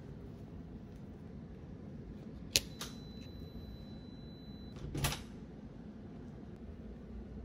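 Keycard-operated locker lock: a sharp click with a softer second click as it releases, a faint thin high tone for about two seconds, then the locker door knocking open about five seconds in.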